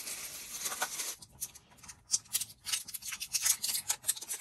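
Hands opening the battery compartment of a wireless mouse and handling its batteries: a rustle, then a run of quick, irregular plastic clicks and scrapes.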